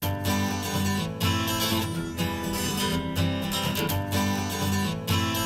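Instrumental music: a strummed acoustic guitar with bass, starting abruptly after near silence. It is the opening of an acoustic song, heard as played back through an in-ear monitor.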